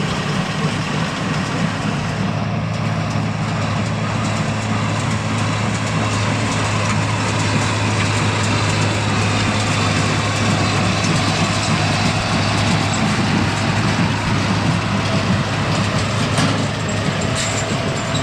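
International Harvester 1066 tractor's diesel engine running at a steady, even drone.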